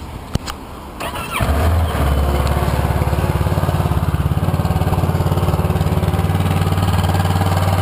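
Kawasaki Versys 650's parallel-twin engine being started: a couple of clicks, a brief whir of the starter, then the engine catches about a second and a half in and settles into a steady idle.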